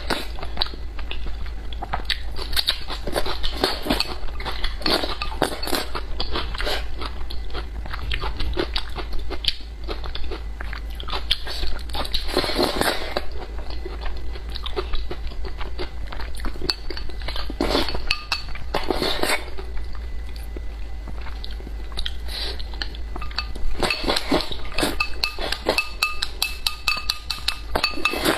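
Close-miked eating: rice porridge slurped from a bowl, with steady wet chewing and crunching and small clicks of chopsticks against the bowl. A longer slurp comes about twelve seconds in and another around nineteen seconds.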